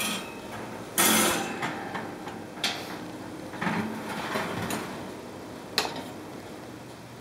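Metal knocks and rattles from a kitchen oven's wire rack, tray and door as a steel knife blade is put in on the rack. There is a loud rattling scrape about a second in, several lighter clunks and clicks, and a single sharp click late on.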